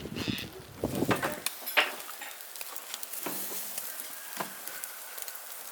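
Clinks and knocks of cooking utensils and dishes, several in the first two seconds, then a few sparse ones over a faint hiss.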